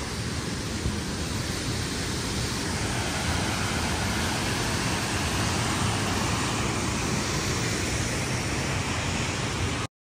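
Steady rushing of a wide waterfall, an even wash of noise with a strong low rumble, cutting off abruptly just before the end.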